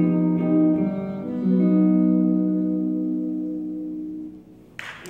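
A jazz combo plays its final notes, led by electric guitar, then holds a closing chord that rings out and slowly fades. Audience applause breaks out near the end.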